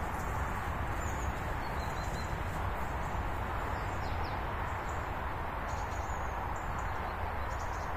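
Steady rushing of a river in flood, running high and fast, with a few faint bird chirps above it.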